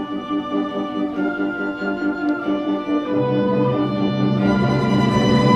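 Orchestral music with held string and brass notes, growing fuller and a little louder as lower notes come in during the second half.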